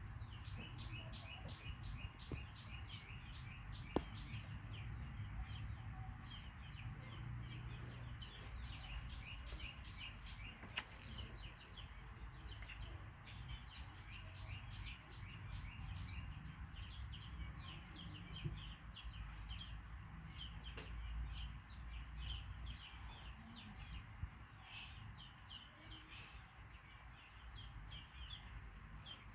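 Birds chirping: a dense, continuous run of short, high, quickly falling chirps, several a second, over a low rumble.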